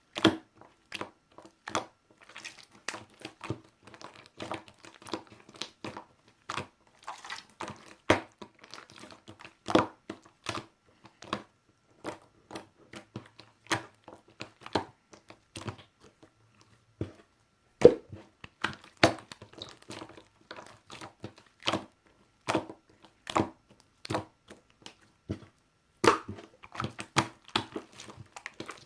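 Slime being squeezed and worked by hand, giving irregular sharp clicks, pops and crackles, with a short pause a little past halfway.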